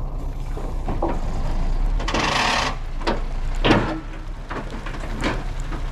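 Timber truck's engine running steadily while its crane loads logs, with wood knocking and scraping several times; the loudest knock comes a little past the middle.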